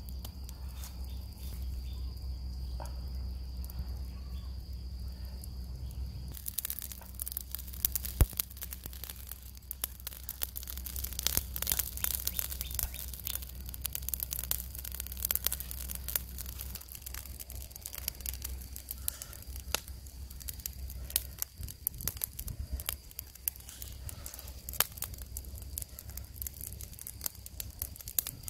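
A steady low rumble for the first six seconds or so, then dense, irregular crackling and popping from charcoal embers under a salt-coated whole fish on a wire grill.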